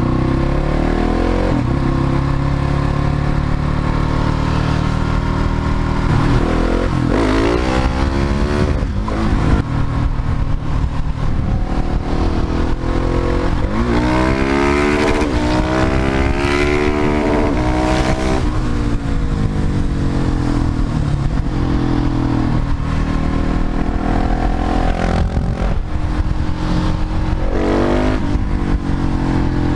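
Husqvarna 701 Supermoto's single-cylinder engine running on the road, rising in pitch several times as the bike accelerates through the gears, with steadier cruising between.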